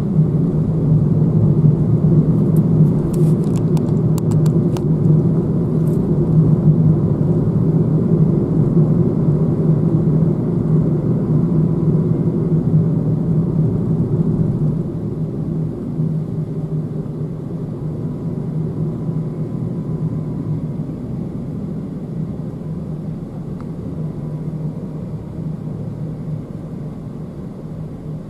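Cabin noise of a moving car: a steady low rumble of tyres and engine, easing off in the second half. A few faint clicks about three to five seconds in.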